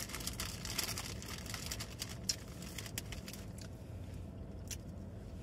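Small, sharp clicks and crinkles of food and a small plastic sauce cup being handled, with mouth-closed chewing, over a steady low hum in the car cabin.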